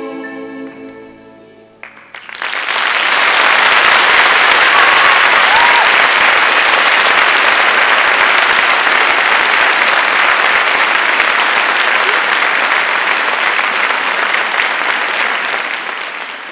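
A held final note of a song fades away, then an audience breaks into loud, sustained applause about two seconds in, tapering off near the end.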